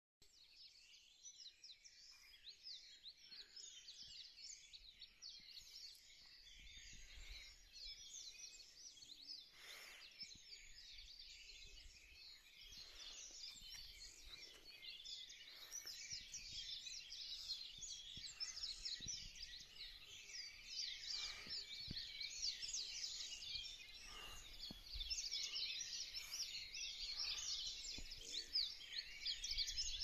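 Many birds singing at once in a dense chorus of quick high chirps and trills, growing louder toward the end.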